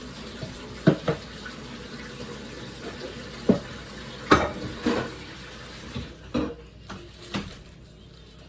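Household knocks and clatter, about nine sharp knocks, the loudest about one and four seconds in, over a steady rushing hiss like running water that falls away about six seconds in.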